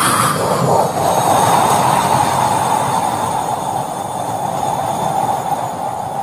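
A man imitating a jet airliner taking off with his voice and throat: a steady rushing noise whose pitch dips briefly about half a second in, then holds lower and slowly fades.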